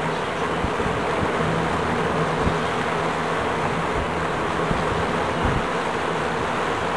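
Lakewood Kmart K-223 box fan running on its high setting: a steady low motor hum under the even rush of air from the blade.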